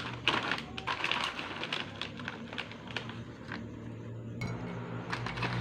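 Dried goji berries dropped by hand into glass bottles, a quick run of small clicks and clinks against the glass with some rustling of the plastic packet, thinning out after about three seconds. A low steady hum comes in near the end.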